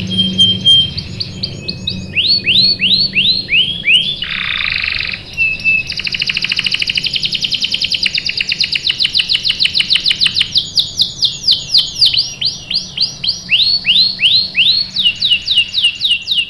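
Domestic canary singing a long, varied song: series of quick falling chirps, a harsh buzzy note, and a long, very rapid rolling trill in the middle.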